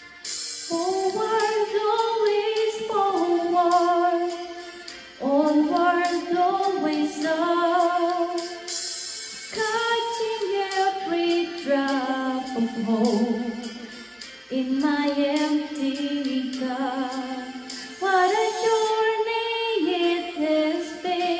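A woman singing a slow song solo into a handheld karaoke microphone, holding long notes with vibrato and pausing briefly between phrases.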